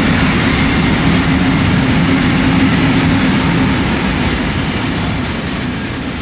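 Container freight train's flat wagons rolling by on the rails: a steady, loud rumble of wheels on track that begins to fade over the last couple of seconds as the last wagons pass.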